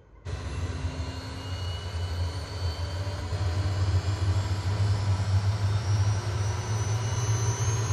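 Steady low drone of jet engines heard inside an aircraft cabin. It starts abruptly about a quarter second in and grows slightly louder, with a faint high whine slowly rising in pitch.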